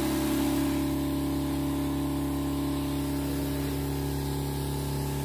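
Motor-driven knapsack sprayer running, its pump humming at a steady pitch, with the hiss of a fine mist from the nozzle.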